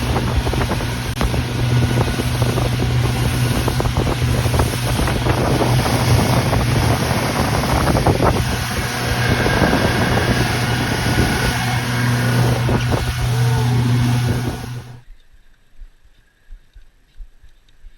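Boat motor running steadily at speed, a low engine hum over a loud rush of wind and water, which stops suddenly about fifteen seconds in.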